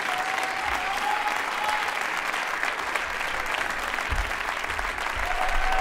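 Concert audience applauding steadily, with a faint whistle or cheer in the clapping.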